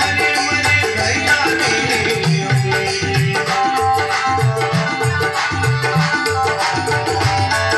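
Instrumental interlude of a Rajasthani folk bhajan: a hand drum beating a quick rhythm with a shaker rattle, under a held melody line.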